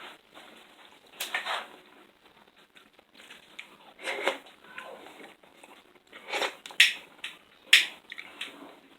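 Food-preparation handling noises: several short rustling, crunching sounds, then two sharp clicks in the second half.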